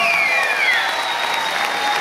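Audience applauding in a hall, with a high tone sliding down in pitch in the first second.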